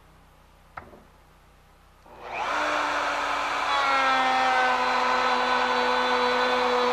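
Electric wood router switched on about two seconds in: the motor spins up and then runs steadily with a high whine, running freely without cutting.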